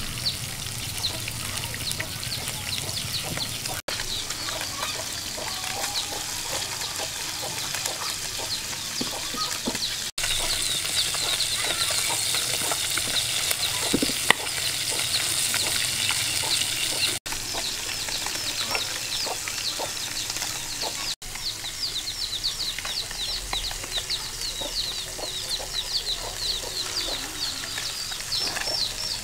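Chickens clucking, with many short, high falling peeps throughout, over knife work on a whole pumpkin: taps, scrapes and one sharp crack as the blade cuts through the hard rind, about halfway through.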